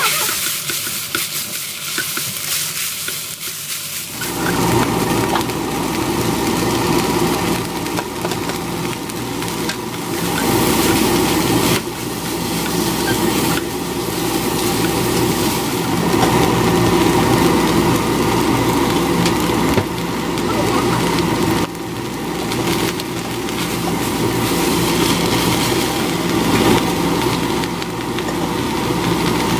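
Seaweed stems sizzling in oil in a nonstick frying pan, stirred and tossed with a silicone spatula, later together with sliced onion and carrot. The sizzling gets fuller and louder about four seconds in.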